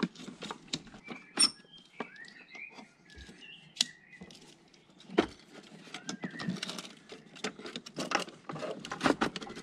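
Plastic wiring-harness connectors and wires clicking, knocking and rustling as the large plugs are worked onto the engine computer, with faint bird chirps in the background.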